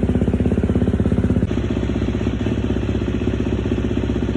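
Husqvarna FC250 dirt bike's 250 cc single-cylinder four-stroke engine idling just after start-up, with a steady, even exhaust pulse. About a second and a half in the idle settles slightly lower. It is run after a fresh oil change to check for leaks.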